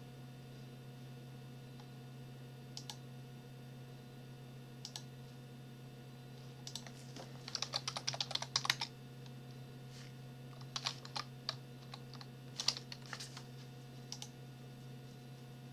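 Typing on a computer keyboard: a few scattered keystrokes, then a quick run of keystrokes about seven seconds in and a few shorter runs after it, over a steady low hum.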